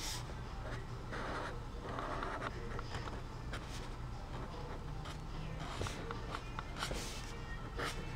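Felt-tip marker scratching across sketchbook paper in a series of short, irregular strokes, over a steady low hum.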